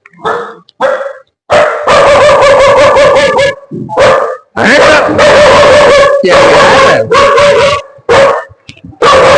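A dog barking loudly and close by, in long runs of rapid barks with brief gaps between them.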